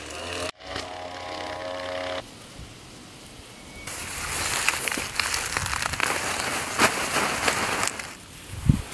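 Leaves rustling and crackling, with sharp snaps, as a gloved hand grips a leafy vegetable plant and pulls it up by the roots from the soil. This runs from about four seconds in to near the end. A steady hum is heard for about the first two seconds.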